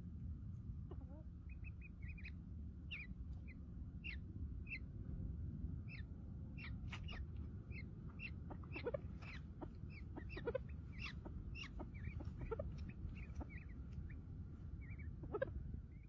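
Sandgrouse and chicks at a ground nest giving many short, high chirps, a few a second, starting about a second and a half in, over a low rumble of wind on the microphone.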